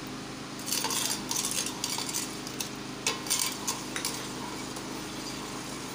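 Metal spoon stirring milk in a steel pot, scraping and clinking against the pot's sides in several short strokes, the busiest about a second in and again about three seconds in.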